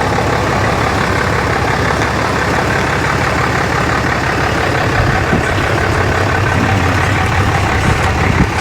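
Dodge pickup truck's engine running steadily at low speed while it swings a large fifth-wheel caravan around on tow.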